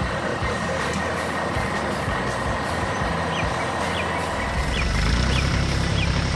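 Heavy truck engine running steadily, growing louder about four seconds in, with a few short high falling chirps over it.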